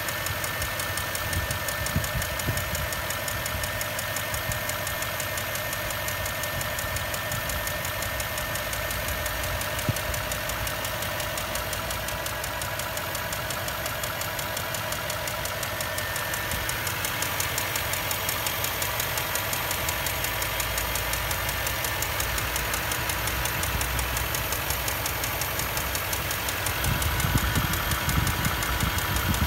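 Land Rover Discovery 3's 4.4-litre petrol V8 running with a steady, rapid ticking knock like a noisy hydraulic lifter. It grows a little heavier near the end. The mechanic suspects a spark plug whose ceramic insulator has come away from its metal shell.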